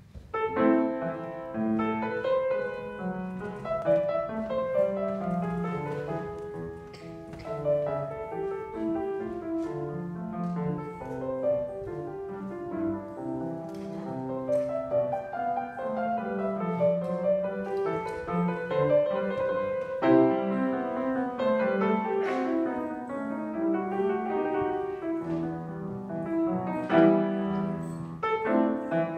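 Solo grand piano playing a classical piece, a moving bass line under a treble melody, starting just after the opening moment.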